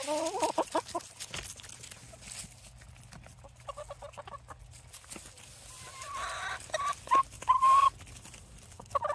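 A flock of backyard hens clucking and calling while they feed on black soldier fly larvae, with short pecking clicks throughout; several calls come near the start, around the middle, and a longer held call near the end.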